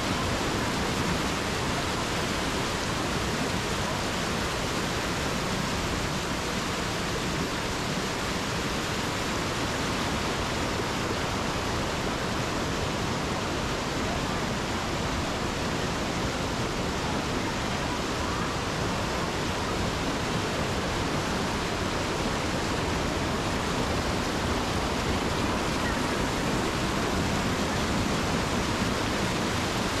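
Waterfall cascade: whitewater rushing and splashing over boulders close by, a steady, unbroken rush of water.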